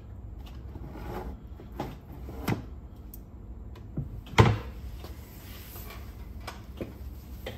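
Scattered clicks and knocks of small parts being handled and fitted on a cassette deck's transport mechanism, about seven in all, the loudest about four and a half seconds in.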